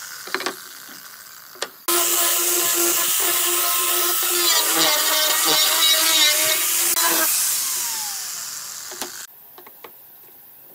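Angle grinder with a sanding disc running at full speed and sanding the edge of a wooden board, a steady high whine over scratchy grinding. It is switched off about seven seconds in, and its whine falls as the disc spins down. A few knocks from the tool and board being handled come before and after.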